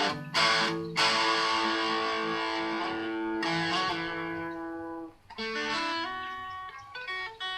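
Instrumental guitar music: chords struck and left ringing, then after a short break about five seconds in, a quieter phrase of picked notes.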